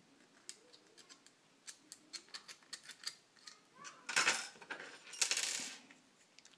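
Light clicks and taps of 3D-printed plastic clamp parts being handled, then two short scraping noises as a flat steel bar slides along and is pushed into the plastic clamp body.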